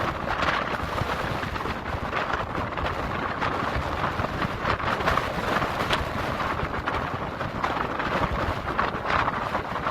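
Strong gusty wind buffeting the microphone over the steady wash of surf breaking on the beach, in a storm with sleet and rain.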